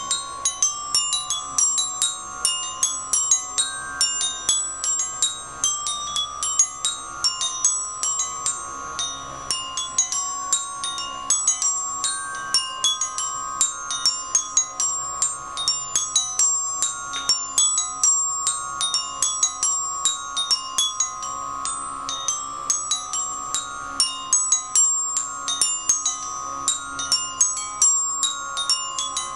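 Glockenspiel with metal bars struck in a continuous stream of quick, ringing notes, several a second. Underneath runs a sustained tone that changes pitch every few seconds.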